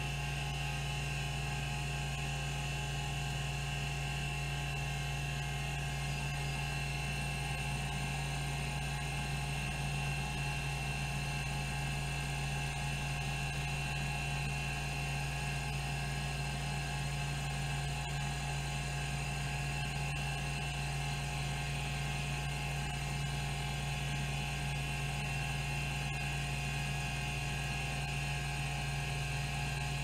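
Rodime RO252 10 MB hard drive spinning at 3600 rpm while its stepper-driven band actuator seeks track after track in a seek-time test, making a steady mechanical hum.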